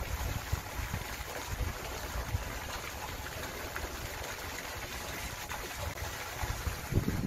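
Hooked trout splashing and thrashing at the water's surface as it is played close to the bank, over a low, uneven rumble.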